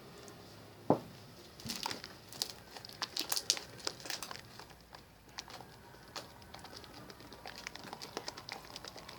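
Slime being worked by hand, giving a run of crackling pops and clicks, densest from about two to four and a half seconds in, with a single sharp snap about a second in.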